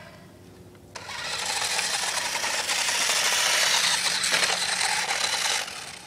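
Remote-control toy quad's motor and gears whirring as it drives over gritty snow, starting suddenly about a second in and cutting off shortly before the end.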